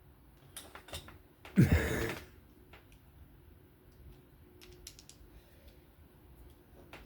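Small clicks and taps of a folding knife and small screwdriver being handled during disassembly, with one louder noise lasting about half a second about a second and a half in.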